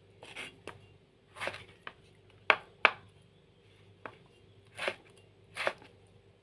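Knife cutting a tomato on a cutting board: irregular strokes, some soft slicing sounds and some sharp knocks of the blade on the board, the loudest two about half a second apart midway.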